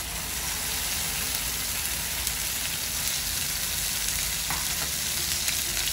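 Ground onion-tomato paste sizzling steadily in hot oil in a frying pan.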